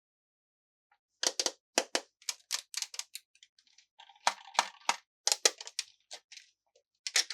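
Sharp, irregular clicks and taps of plastic toy pieces and packaging being handled, starting about a second in and coming in quick clusters of two or three.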